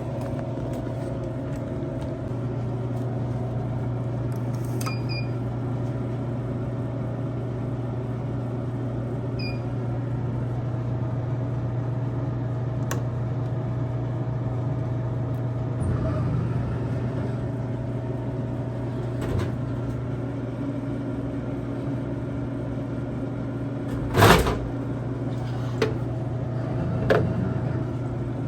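A steady low mechanical hum, with a single loud knock about 24 seconds in and a couple of lighter clicks after it.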